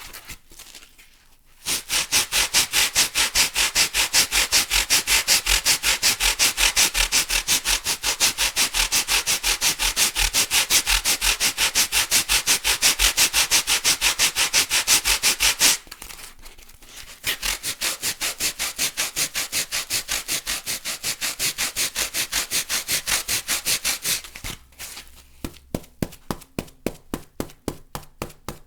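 White packing foam rubbed hard back and forth, a fast, even scratchy rubbing of about four strokes a second in two long runs. Near the end it turns to softer strokes with a squeaky tone.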